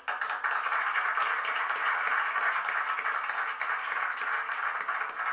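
Audience applauding steadily, a dense crackle of many hands clapping at once.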